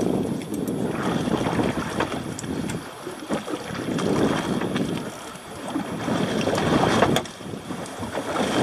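Wind rushing over the microphone with sea noise aboard an offshore fishing boat, a deep rushing noise that swells and eases in gusts. A few sharp clicks cut through it, the clearest about seven seconds in.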